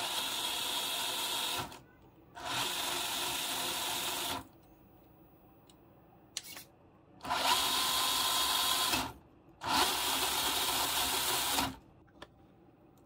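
A 1/10-scale D1RC D110 Defender RC crawler's electric motor and gearbox spin its wheels freely in the air with a steady whine. They run in four bursts of about two seconds each, in two pairs, with a short click between the pairs.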